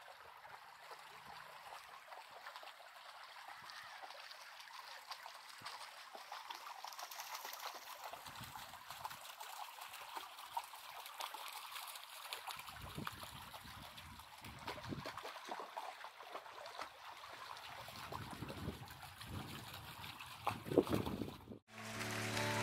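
Faint outdoor ambience: a steady hiss with soft low rumbles now and then. It cuts off near the end as music begins.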